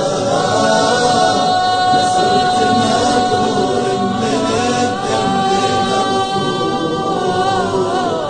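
Arabic devotional song (nasheed) in praise of the Prophet, sung as a long, drawn-out held note that wavers near the end.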